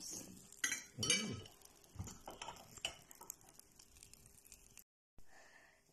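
Light clinks of metal utensils against plates and dishes at a dinner table, a few scattered taps about every half second.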